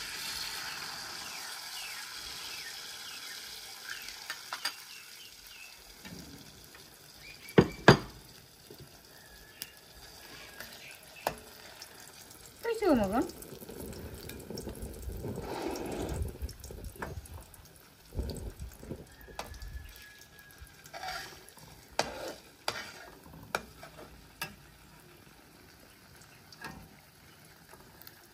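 Beaten egg poured into a hot aluminium wok, sizzling loudly at first and dying down over several seconds. Clinks and knocks of utensils against the metal wok follow, the two loudest about eight seconds in.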